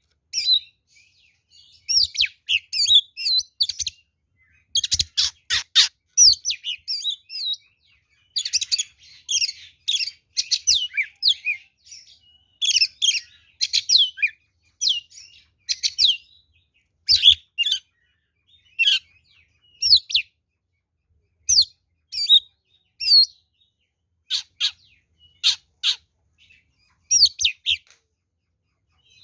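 Oriental magpie-robin (kacer) in full, loud fighting song: bursts of quick, varied whistles and chirps broken by short pauses, with a run of harsher, rasping notes about five seconds in.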